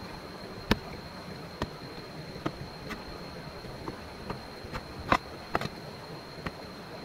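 Irregular sharp knocks and clicks, about ten of them at uneven spacing, the loudest about five seconds in, over a steady hiss with a faint high steady tone.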